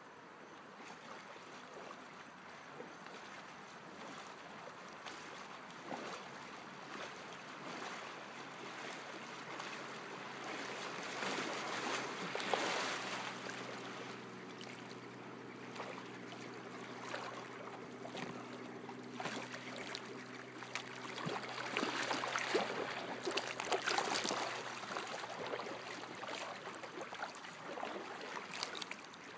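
Kayak paddle blades dipping and splashing, with water swishing along the hull as the kayak is paddled up close. The splashing is loudest about halfway through and again in the last third. A faint steady low hum runs under it in the middle.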